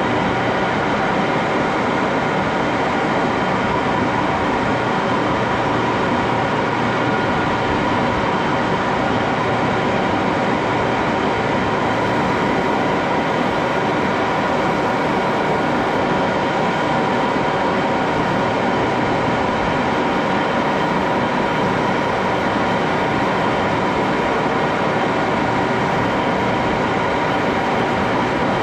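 A 1941 Axelson engine lathe running steadily under power: an even mechanical rumble with several steady whining tones on top, unchanging throughout.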